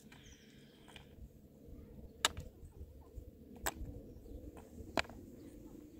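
A few sharp knocks, about one every second and a half, over a low rumble, with a short high chirping sound at the very start.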